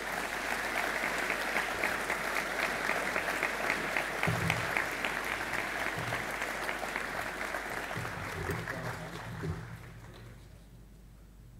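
Audience applauding, a dense run of many hands clapping that fades away about ten seconds in.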